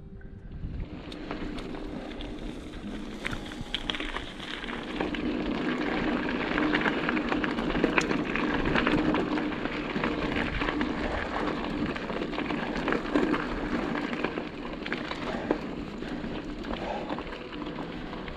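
Mountain bike tyres rolling on a gravel road: a dense crackle of small stones and clicks that builds over the first few seconds and is loudest in the middle.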